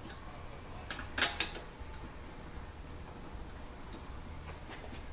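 Small metal bolts and hand tools being handled while an engine oil pan is bolted on: a few light ticks and one sharp clink about a second in.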